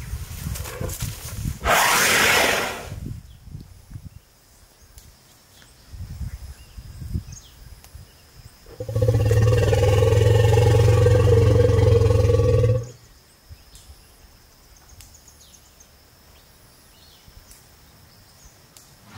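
Asian elephant calling: a short, noisy blast about two seconds in, then a loud, low, steady call lasting about four seconds near the middle.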